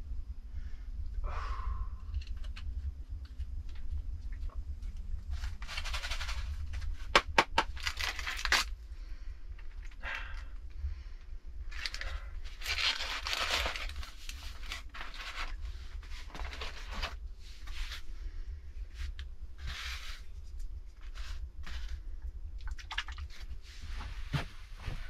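Paper and plastic wrapping rustling and crinkling as it is handled and unwrapped, in irregular bursts, with a few sharp clicks and taps of small objects set down on a wooden table.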